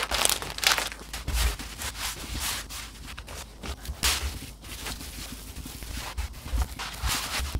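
Handling a large raw beef brisket: the plastic vacuum bag rustling as it comes off, then the heavy meat shifting and thudding softly on a plastic cutting board. The sound is irregular scraping and rustling with a few dull thumps.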